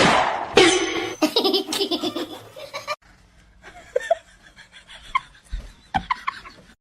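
Hearty laughter, loud and in quick repeated bursts, that cuts off abruptly about three seconds in. A few faint short squeaks follow.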